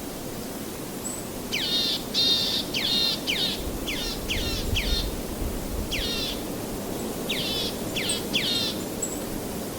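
A bird giving a series of about a dozen short calls, each sweeping steeply down in pitch, in quick clusters over several seconds, over a steady background rush.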